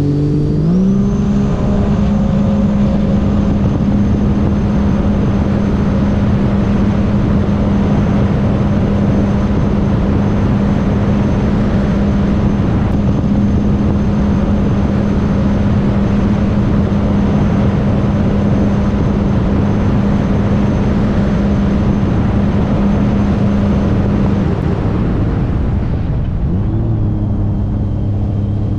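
A Sea-Doo RXP-X 300's supercharged three-cylinder Rotax engine on a wide-open-throttle top-speed run. The engine climbs to full revs in the first second and holds one steady high note over rushing water and wind. Near the end the rider eases off and the pitch drops.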